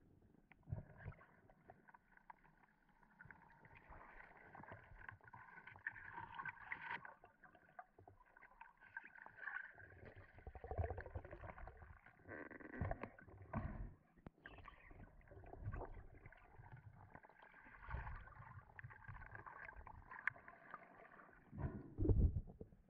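Choppy sea slapping and sloshing against a sailboat's hull in irregular low thumps as the boat rocks.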